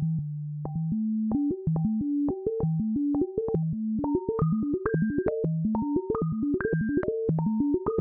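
Meng Qi Wing Pinger synthesizer playing a latched arpeggio, its filters pinged into ringing notes by the pinger logic signal. The notes come fast, several a second, each with a clicky attack, stepping up through a repeating pattern that climbs higher as it goes.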